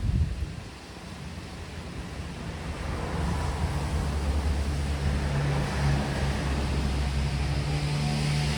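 Rain falling while a motor vehicle's engine approaches, a low hum growing steadily louder from about three seconds in. A short low thump comes right at the start.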